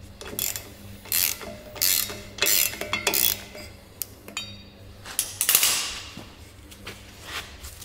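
Hand socket ratchet wrench clicking in repeated short swings, about one every two-thirds of a second, as bolts are undone on the water pump of an AEC Routemaster bus engine. It pauses about halfway through, then gives a longer run of clicks, with a faint steady hum underneath.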